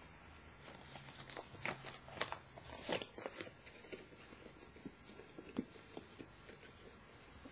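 Hands handling a silicone resuscitator bag: a series of sharp clicks and rubbery rubbing noises, thickest about one to three seconds in, then a few scattered ones.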